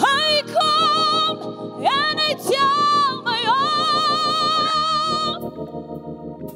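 A woman singer belting high sustained notes with wide vibrato in three phrases over steady gospel keyboard chords. The last note is held for about two seconds. Her voice stops about five seconds in and the keyboard chords carry on alone.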